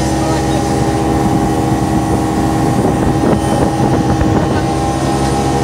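Motorboat engine running steadily at towing speed as a constant hum, with the rush of water from the wake.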